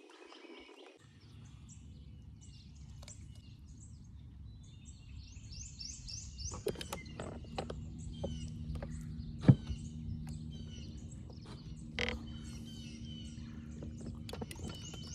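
Birds chirping and twittering in the background over a low steady hum that sets in about a second in. A few sharp clicks and knocks sound through it, the loudest about two-thirds of the way through.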